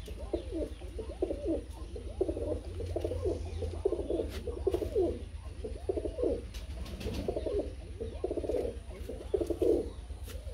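Punnu-wale domestic pigeons cooing: a run of low, warbling coos, about one a second, some overlapping.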